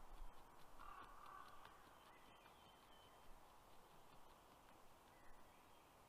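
Faint forest ambience with a common raven calling briefly in the distance about a second in, and thin songbird chirps a little later.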